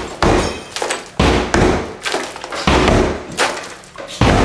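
Sledgehammer blows against an interior wall during demolition: a heavy crashing impact about every second, around six in all.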